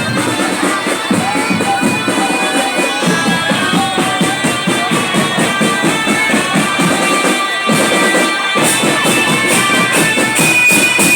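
Drum band playing: a sustained wind-instrument melody over a dense, steady drum beat, with the low drums dropping out for a moment about eight seconds in.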